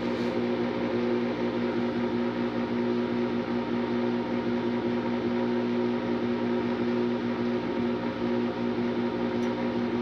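Draft inducer motor of an old Janitrol gas furnace running with a steady hum and whir. No ignition follows: the furnace's start-up stalls at this stage.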